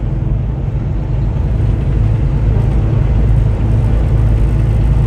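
Steady low drone of a semi truck at highway speed, engine and tyre noise heard from inside the cab.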